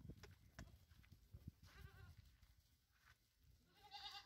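Faint goat bleats from Osmanabadi goats, one about two seconds in and another near the end, with a few light knocks in between.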